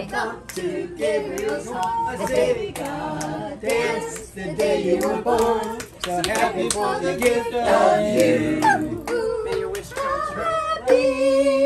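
A group of people singing together without accompaniment and clapping along, with scattered voices mixed in; near the end the singers hold a long note.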